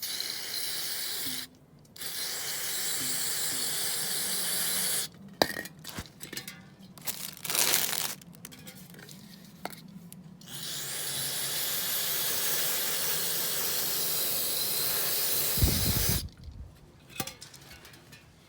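Steady hissing in three bursts, one short and two several seconds long, each starting and stopping abruptly, with small clicks and rustling between them and a low thump as the last burst ends.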